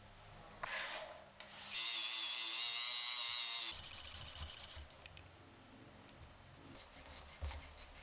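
Small metal typewriter parts being cleaned by hand. A high, wavering whir from about two seconds in lasts about two seconds. Near the end come quick rubbing strokes, about eight a second, of a pad along a thin metal rod.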